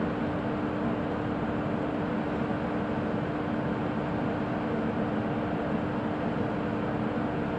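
WAP1 25 kV AC electric locomotive idling with its auxiliary machinery running: a steady whirring noise with a constant hum, unchanging throughout.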